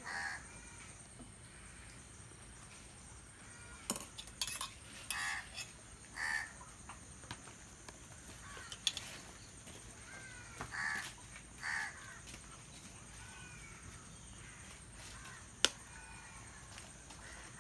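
Birds calling in the background, about half a dozen short calls spread through the stretch, with a few sharp clicks or taps in between and one louder click near the end.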